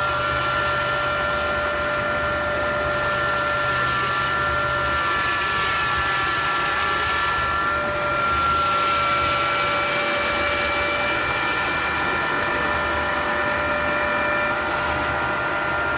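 TD wire saw cutting machine running steadily: a continuous machine whine of several held tones over even noise.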